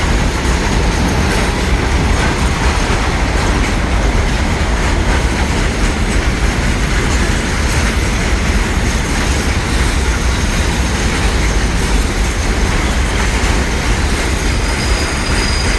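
Container freight train hauled by an EMD diesel locomotive rolling past: a loud, steady rumble of wheels on rails that holds without a break.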